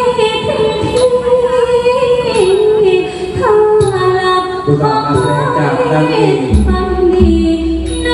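A woman singing a likay song in a clear high voice, with long held notes that slide from pitch to pitch, over instrumental accompaniment; a deep bass comes in about six and a half seconds in.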